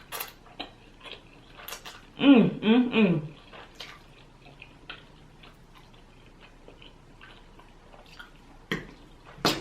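Eating sounds: scattered light clicks of a utensil on a plate along with chewing, and a short three-note voice sound, like an "mm-mm-mm" of enjoyment, about two seconds in.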